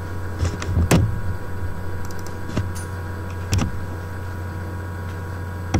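A handful of separate sharp clicks from laptop keys or a mouse being pressed repeatedly to get stuck presentation slides to advance, over a steady low electrical hum.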